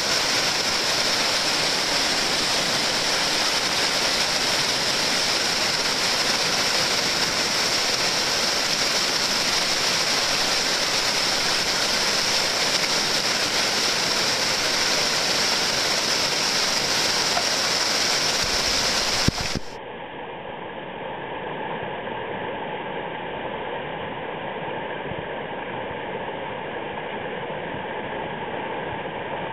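White water of a river rapid rushing steadily. About two-thirds of the way in it cuts suddenly to a quieter, duller recording of the same rushing water.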